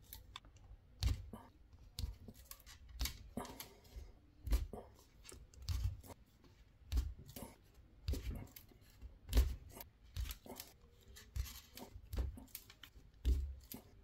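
Self-adjusting wire stripper snapping shut and springing open as it strips the insulation from thin LED leads. It gives a sharp click about once a second, a dozen or so times.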